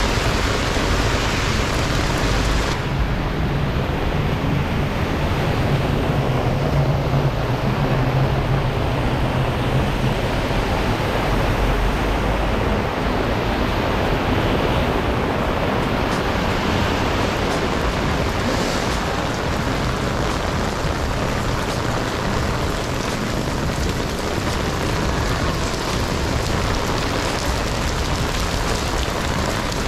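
Heavy rain falling on an umbrella and a wet street, a steady hiss that turns duller about three seconds in, with a low rumble of traffic over the next several seconds.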